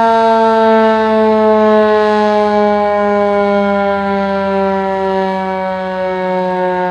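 Erick 2 hp electric fire siren sounding a steady full-alert tone, its pitch gliding slowly and evenly downward as the siren winds down.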